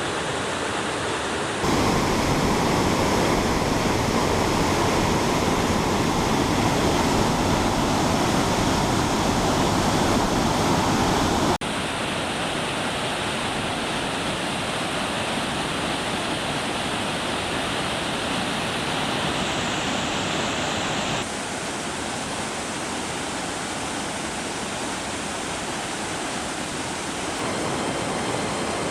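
Waterfall water rushing in a steady, dense wash of noise. The level jumps up abruptly a couple of seconds in, falls back suddenly near the middle, and drops a little again about two-thirds of the way through, as between separate takes.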